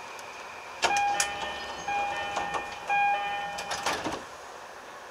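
A train horn sounded for about three seconds: one flat, steady pitch that swells louder three times, over the steady running noise of the electric train, with sharp clicks as it starts and stops.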